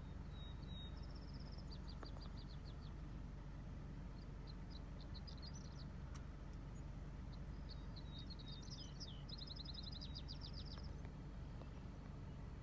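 A songbird singing short, high, rapidly repeated trilled phrases three times, the longest from about eight to eleven seconds in, over a faint low steady hum.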